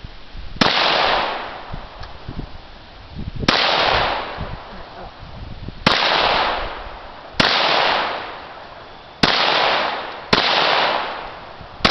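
Polish PPS-43 in semi-automatic form firing 7.62×25 mm Tokarev rounds one at a time: six sharp single shots spaced one to three seconds apart, each followed by a long fading echo.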